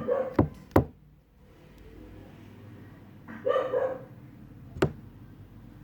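A dog barking, briefly at the start and again about three and a half seconds in, with a few sharp knocks in between.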